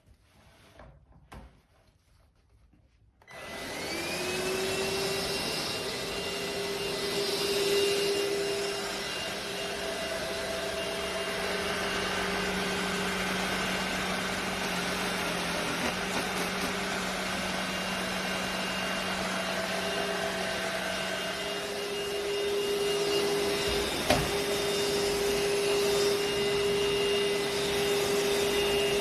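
Cordless stick vacuum (elezon A200) switched on about three seconds in: its motor spins up with a short rising whine, then runs steadily with a high whine whose pitch shifts a little. A few light knocks come before it starts, and one sharp knock comes about three-quarters of the way through.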